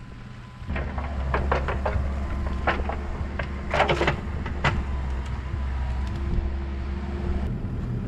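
An engine starts running steadily at idle about a second in, with several short metallic clanks and knocks over it.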